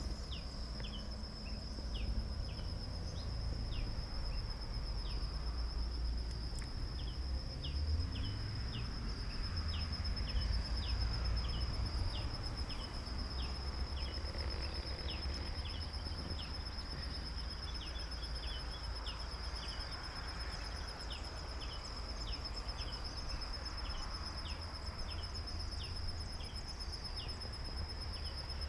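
Insects, crickets or similar, keep up a steady high trill, while short high chirps come every second or so over a low rumble.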